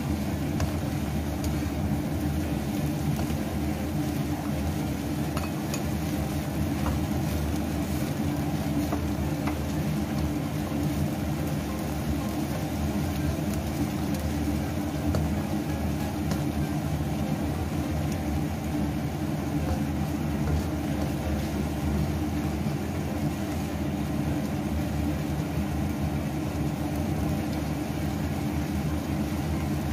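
A steady low mechanical hum runs throughout, under faint sizzling and simmering of napa cabbage and rice vermicelli in a wok, with a few light spatula scrapes near the start.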